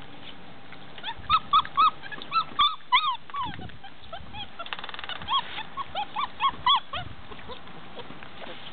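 Weimaraner puppies whimpering in two runs of short, high, rising-and-falling squeals, about fifteen in all.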